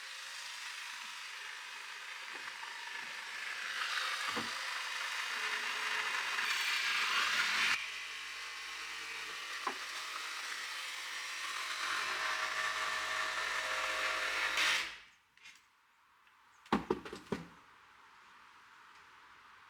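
A power saw cutting wooden flooring boards, a steady hissing cut that stops suddenly about fifteen seconds in, followed by a few sharp knocks of wood.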